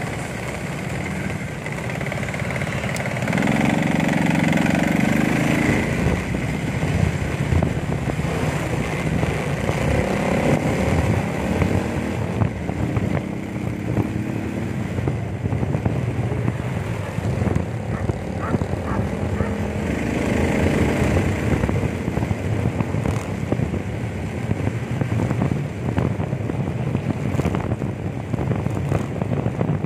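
Road traffic and motor engines heard while riding along a busy road, with wind rushing over the microphone. A nearby engine's drone swells twice, a few seconds in and again about two-thirds of the way through.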